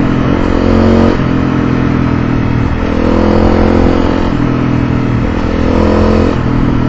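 Motorcycle engine running under way, its note climbing and falling back several times, with a steady rush of wind and road noise.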